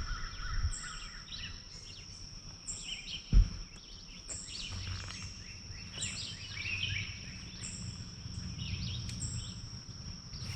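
Birds calling and chirping over a steady, high-pitched insect drone, with repeated short chirps about once a second. A single sharp thump comes about three and a half seconds in.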